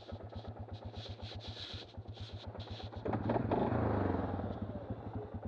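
2003 Suzuki Vinson ATV's single-cylinder engine running with an even pulsing beat of about eight to ten beats a second. It gets louder in a brief surge a little past halfway through, then settles back.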